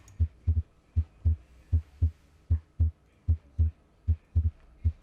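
Heart sounds played as a teaching example of a split second heart sound (S2): a regular lub-dub, each beat a pair of low thumps (S1 then S2), at roughly 78 beats a minute.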